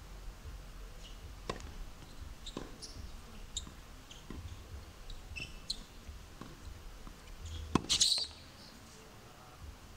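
Tennis rally on a hard court: sharp racket strikes and ball bounces about once a second, the loudest a close forehand hit near the end, followed by a short scuffing burst.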